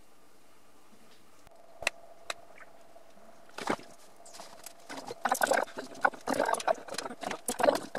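A few light clicks, then a dense run of crinkling and rustling from the foil wrapper of a block of butter as pieces are cut off and dropped into a steel bowl on a kitchen scale.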